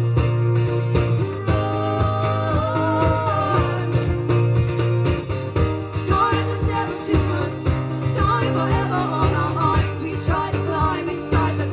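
Live band music between sung lines: a steady bass and a melody line over a regular beat.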